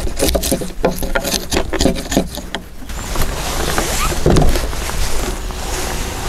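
A chisel working a joint in a timber beam, a quick irregular run of sharp wooden clicks and knocks for about three seconds. Then the heavy beam is shifted on its sawhorses, with a dull knock a little after four seconds.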